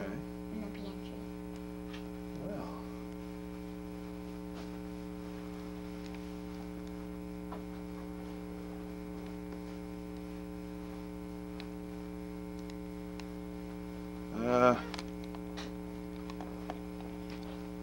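Steady electrical mains hum on the recording's sound track. About fourteen and a half seconds in, a short, loud pitched sound cuts through it.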